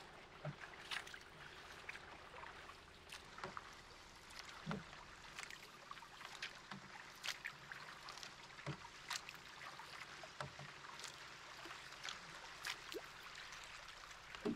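Canoe being paddled: water lapping and trickling along the hull, with frequent small, irregular splashes and knocks from the paddle strokes.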